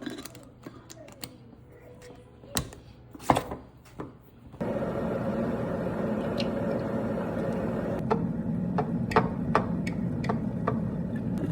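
A few sharp knocks and clicks from handling kitchen things. About four and a half seconds in, a steady droning noise starts abruptly, with more occasional clicks over it.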